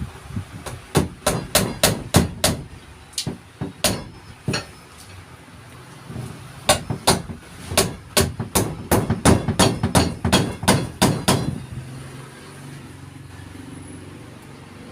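Hammer blows during carpentry work, in two runs of quick strikes about three a second: roughly a dozen, a short pause, then about fifteen more before they stop near the end.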